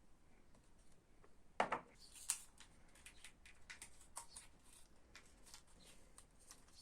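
Faint, scattered clicks and rustles of small objects being handled, with a few sharper clicks about two seconds in and lighter ticks after.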